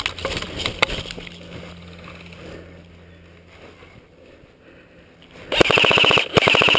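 Airsoft electric rifle firing on full auto close by: a loud, rapid burst of clacking shots about five and a half seconds in, a short break, then a second burst starting near the end. Before that, scraping and rustling of gear as the shooter moves.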